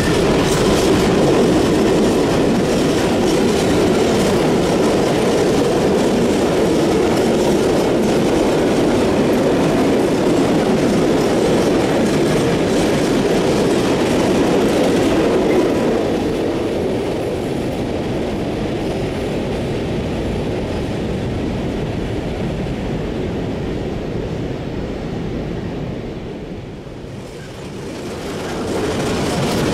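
A long freight train of loaded ore hopper wagons rolling past close by, with the steady noise of wheels on rail. About halfway through it grows somewhat quieter. It dips near the end, then swells again as a train of grain hopper wagons rolls by.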